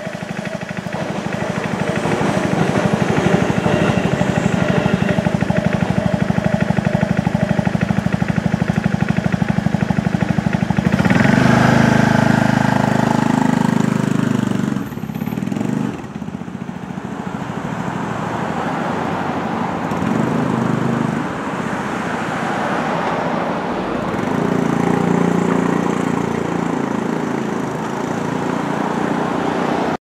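Japanese level-crossing warning bell ringing with a fast, even repeat, then stopping about eleven seconds in. Road traffic and vehicle engines follow as the cars move off.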